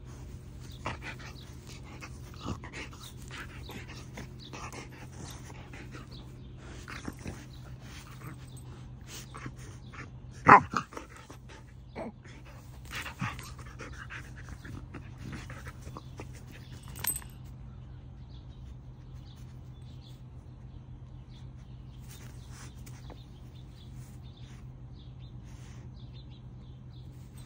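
Samoyed rubbing its face in grass and rolling on its back, making scattered rustles and small dog noises. One short, sharp, loud sound comes about ten seconds in, with a few smaller ones after it. A steady low hum runs underneath.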